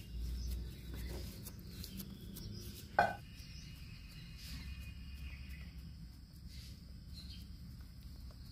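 Faint outdoor background with a steady high hum and low rumble, and one sharp tap about three seconds in.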